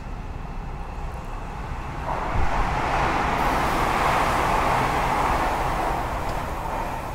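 Train running noise, a steady rush that swells louder about two seconds in and eases off near the end.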